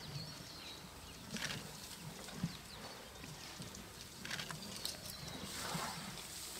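African elephants shuffling about on dry, dusty ground and leaf litter, with scattered crackles and soft thuds. A breathy rush comes near the end.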